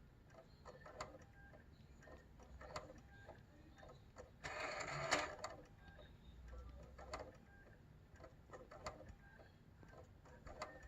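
PlayStation 4 Pro disc drive making faint, irregular clicks and knocks, with a louder burst of noise about four and a half seconds in, as it struggles to read a disc: the strange noise of a failing laser lens deck that ends in an unrecognized disc error.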